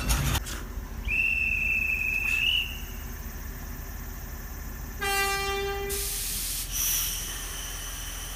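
A railway worker's hand whistle blown once in one long, steady high note. About two seconds later the electric locomotive's whistle sounds once for about a second, the departure signal.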